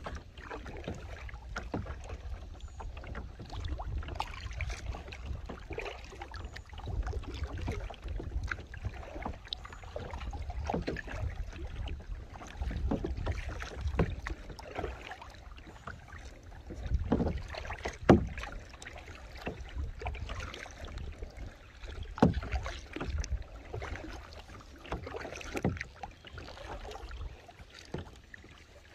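Kayak paddling: the paddle blades dip and wash through the water in repeated strokes, with a few sharp knocks, the loudest about two-thirds of the way in. A steady low rumble, like wind on the microphone, runs underneath.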